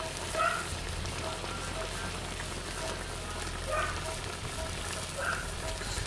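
Pork neck chunks with onion and green pepper sizzling and simmering in their juices on a round steel disc pan over a wood fire, a steady hiss.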